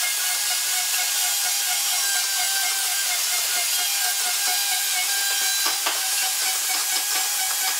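Maktec MT362 electric plunge router running at full speed, a steady high whine over a hiss as the bit cuts into the wooden board, with a brief knock just before six seconds in.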